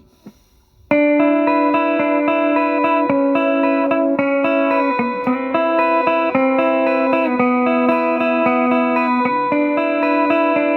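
T-style electric guitar on its middle selector position, the bridge P90 and the split neck humbucker wired in series, played with picked notes that ring on. It comes in about a second in after a brief pause.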